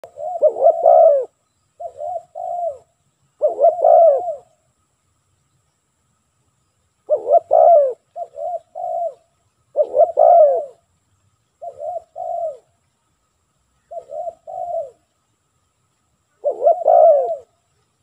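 Spotted dove cooing: repeated phrases of a few deep, rolling coos, the longer phrases alternating with shorter two-note ones, with a short pause partway through.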